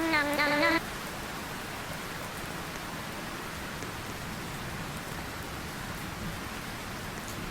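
Steady rain falling, an even hiss with no let-up. A short wavering melody is heard at the very start and cuts off before the first second is out.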